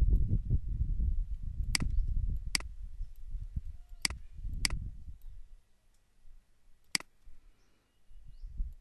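Computer mouse button clicked five times at irregular intervals, two pairs and then a single click, as anchor points are placed with Illustrator's pen tool. A low rumble sits under the first half and dies away.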